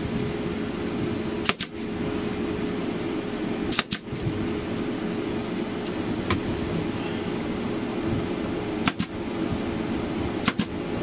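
Arrow PT50 pneumatic staple gun firing four times, each a sharp double snap, a few seconds apart, as staples are driven through foil insulation into wooden framing. A steady machine hum runs underneath.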